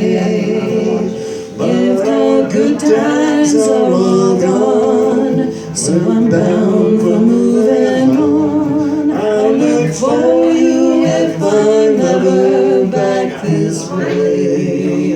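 A man singing a folk song with acoustic guitar, ending the song with sustained vocal lines.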